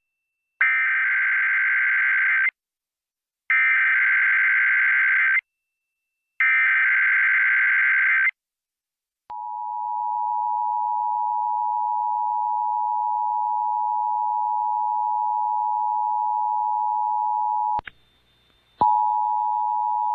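Emergency Alert System test tones: three bursts of the digital SAME header, each about two seconds long with a second's pause between, then the steady two-tone attention signal. Near the end it cuts off with a click, and after a brief gap a new steady single tone begins.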